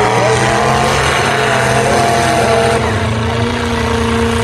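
Demolition derby cars' engines running loudly, their pitch drifting up and down.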